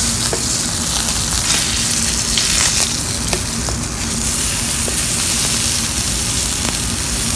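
NY strip steak sizzling in hot canola oil in a skillet, a steady sizzle with scattered pops, as its edges and fat cap are seared to render the fat.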